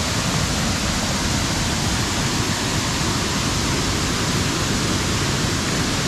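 Rushing water from a river and waterfall, a steady, even roar with no breaks.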